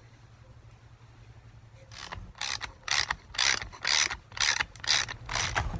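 Hand ratchet wrench clicking through repeated back-and-forth strokes, about two a second, starting about two seconds in, as bolts are tightened into nut plates.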